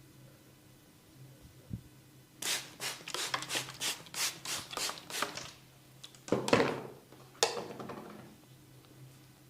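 Hands rubbing and scratching through hair and skin during a head massage: a run of brisk rubbing strokes, about four a second for some three seconds, then two longer, louder swishes about a second apart.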